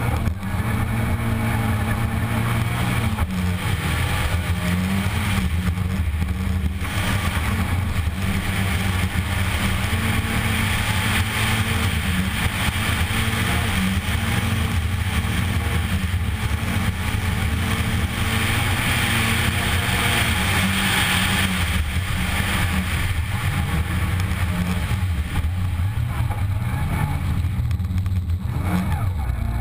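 Škoda Fabia R2 rally car's four-cylinder engine heard from inside the cabin, running at high revs and rising and falling in pitch through gear changes while driven flat out on gravel. A steady rush of tyre and gravel noise runs under it, growing louder for a few seconds around the middle.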